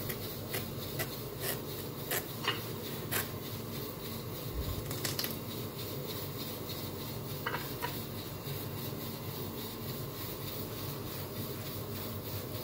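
Kitchen knife cutting through a watermelon: a run of light taps and scrapes in the first three seconds and a couple more later, over a steady low hum.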